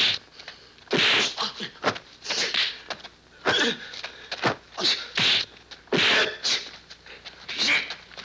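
Dubbed kung fu fight sound effects: a rapid run of sharp punch and kick impacts and whooshes, about fifteen hits, mixed with the fighters' grunts and cries.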